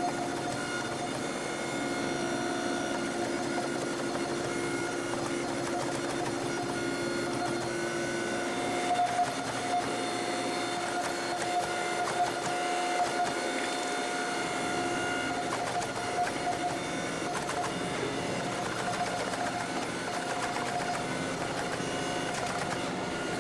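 Hydraulic forging press running with a steady hum and whine while its dies squeeze a red-hot 52100 steel bar. A few short cracks come around the middle.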